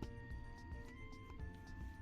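Music: a simple electronic melody of held notes changing pitch about every half second, with a few faint clicks.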